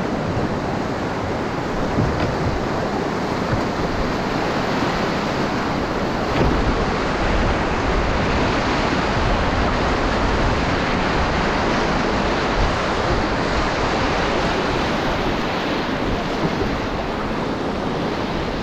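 Whitewater rapids rushing and churning steadily around a solo canoe running through them, with wind rumbling on the microphone.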